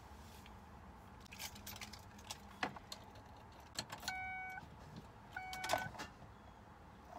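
Car keys jangling and clicking in the ignition as the key is worked, with two short electronic warning chimes from the car's dashboard about four and five and a half seconds in.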